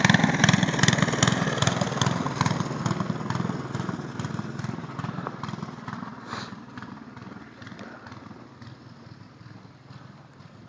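Small petrol engine of a snowblower running steadily, fading as it is left behind until it is faint near the end.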